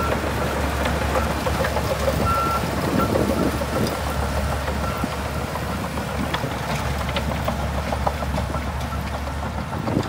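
Shantui DH17C2 bulldozer's diesel engine running steadily under work, with a constant scatter of clanks and knocks over it.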